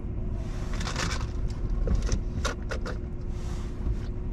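Steady low rumble of a car idling at a standstill, heard from inside the cabin, with a few scattered short clicks and taps.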